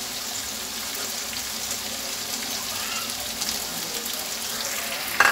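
Paneer, capsicum and tomato masala sizzling steadily in a nonstick kadhai on the stove, with a single short knock near the end.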